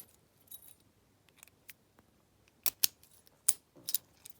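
Lockwood lockout padlock being handled: a scattering of sharp metallic clicks and snaps, the loudest a close pair a little under three seconds in and another about half a second later.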